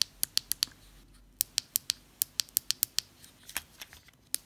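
Shimano Ultegra Di2 ST-R8070 electronic shift buttons clicking as they are pressed over and over, sharp high clicks in quick runs with short pauses between. The buttons work, and their action is light.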